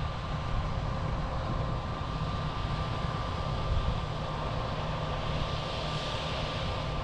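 Combine harvester running steadily as it cuts a crop: a constant machine drone with a low rumble and a steady high whine.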